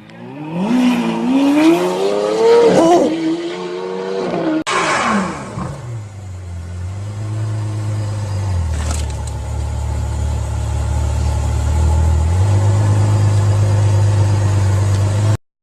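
A supercar engine revving up as the car accelerates away, its pitch climbing with a break for a gear change about three seconds in. After a cut, a Ferrari F12berlinetta's V12 runs low and steady near idle; its note drops lower about halfway through and rises back later, then cuts off suddenly near the end.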